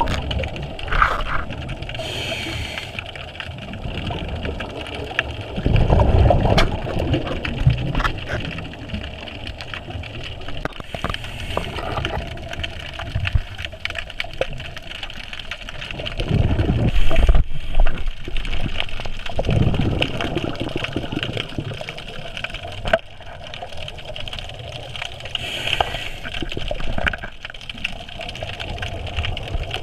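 Scuba regulator breathing heard underwater: short hissing inhales, each followed by a surging, gurgling rush of exhaled bubbles, repeating every few seconds.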